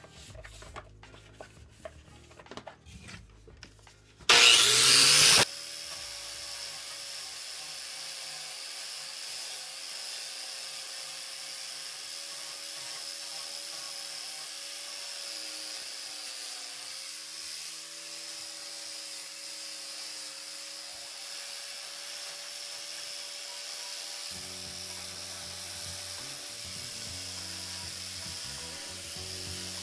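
A few small handling knocks. About four seconds in, an angle grinder spins up with a brief, loud rising whine. It then runs steadily, its plastic sponge (surface-conditioning) disc rubbing rust and grime off the steel blade of an old draw knife.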